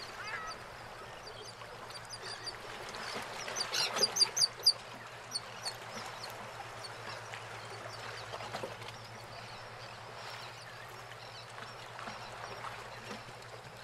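Birds calling: a quick run of short high calls about four seconds in, with a few more scattered after, over the steady wash of harbour water around moored boats and a low steady hum.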